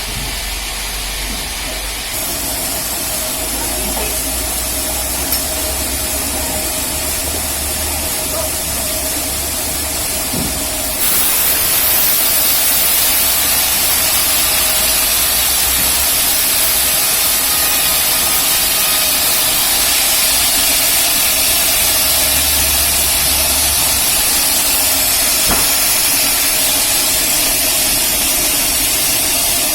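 Rail-mounted band sawmill running, its blade sawing through a large teak log: a loud, steady noise with a constant hum, growing louder and brighter about eleven seconds in.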